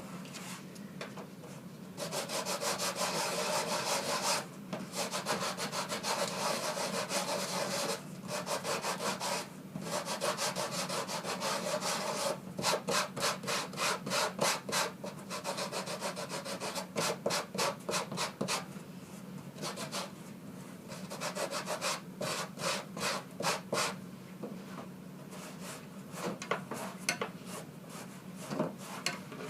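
Sanding square rubbed back and forth over embossed dual-layer cardstock: long stretches of steady scraping alternating with runs of quick strokes, about two to three a second, with short pauses between. The sanding wears the raised embossing so it stands out from the rest.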